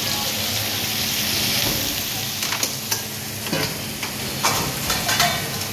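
Meat frying on a flat-top griddle, with a steady sizzle. In the second half, several sharp clacks of metal pans and utensils being handled.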